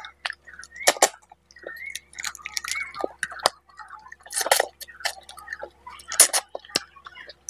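Close-miked mouth sounds of a person eating fish head curry with rice by hand: wet chewing and lip smacks, with sharp smacking clicks at intervals, the loudest about a second in, midway and near the end.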